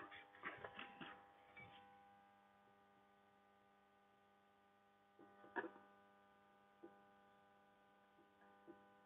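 Near silence with a steady electrical hum. A few faint taps and clicks of a marker writing on a whiteboard, the loudest about five and a half seconds in.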